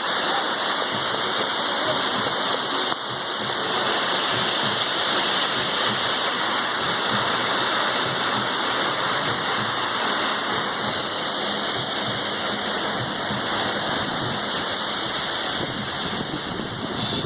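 A waterfall in full rainy-season flow, falling water making a steady, dense rush that holds the same level throughout.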